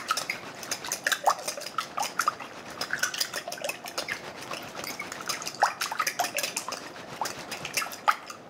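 Metal fork beating a liquid egg mixture in a glass bowl, its tines clicking quickly and repeatedly against the glass.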